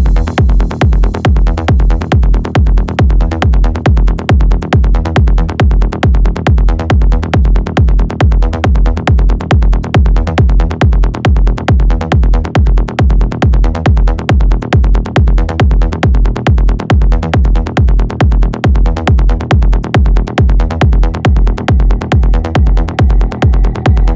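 Uplifting trance music with a steady four-on-the-floor kick drum at about two beats a second under a driving bassline and synth pads, with no vocal.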